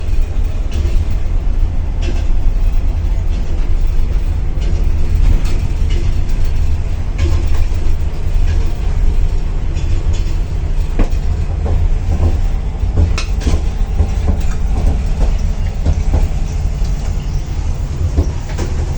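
Running noise of a moving double-deck passenger railway carriage heard from inside: a steady heavy rumble, with occasional knocks and rattles from the wheels and the car body.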